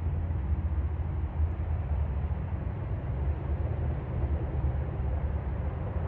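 Highway traffic: a steady low rumble of a semi truck and cars driving past on the interstate.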